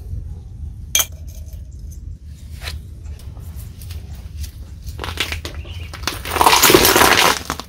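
A car tyre rolls over a striped cylinder on concrete and crushes it, with a loud crunching and crackling that lasts about a second near the end. Earlier, a sharp click about a second in, over a steady low rumble.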